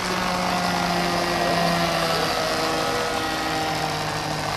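Radio-control model airplane's engine running steadily on the ground, a buzzing hum whose pitch eases down a little about halfway through.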